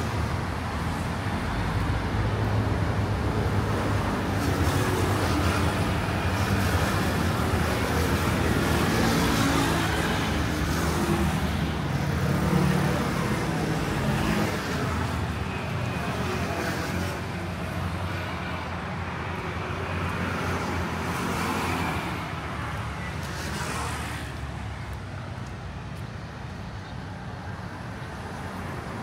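Road traffic: cars and motor scooters passing along the street, a steady engine and tyre noise that is louder in the first half and eases off in the last several seconds.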